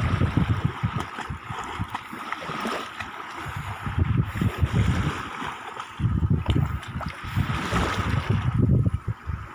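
Wind buffeting the phone's microphone in irregular gusts, over the hiss of small sea waves washing in the shallows and water splashing around a wading child.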